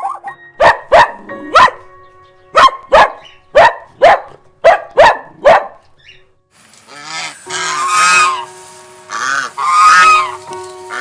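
Duck quacking: a quick run of about ten short, sharp quacks, then after a brief pause a series of longer, harsher calls starting about six and a half seconds in.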